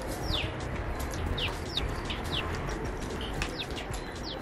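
Small birds chirping: short, high calls that each slide quickly down in pitch, coming irregularly about two a second, over a steady background hiss.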